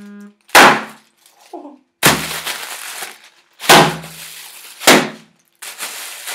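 A large cardboard shipping box being handled and pulled open: four sharp, loud knocks and slaps of cardboard, with scraping and rustling between them.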